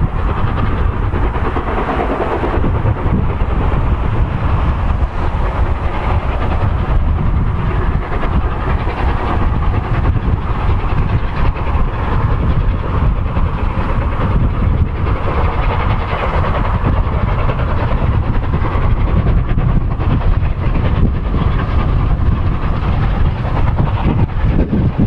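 Steam locomotive hauling a passenger train, its exhaust and the rolling train heard as a steady noise with no single sharp event.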